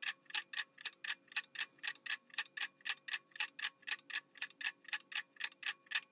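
Countdown-timer ticking sound effect: a steady run of even clock ticks, about five a second.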